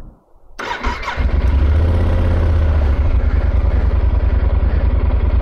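Yamaha adventure motorcycle engine being started: a brief starter whirr about half a second in, the engine catching about a second in, then running steadily with a low, even pulse.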